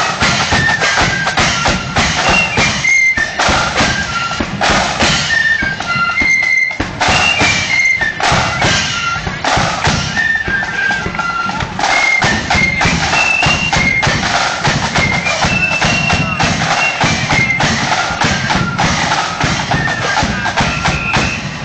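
Loyalist marching flute band playing: a shrill, stepping melody on many flutes over heavy, rapid drumming of snare and bass drums.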